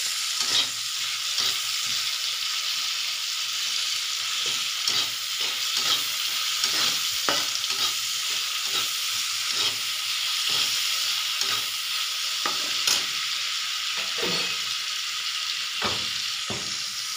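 Chopped onion and green chillies sizzling in hot oil in a kadhai while a metal spatula stirs them, scraping and knocking against the pan a couple of times a second. The onions are being fried until golden brown.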